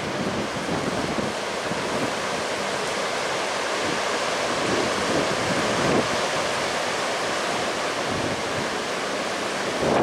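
Gusty wind blowing through the bare branches of tall trees: a steady rushing noise that swells slightly now and then.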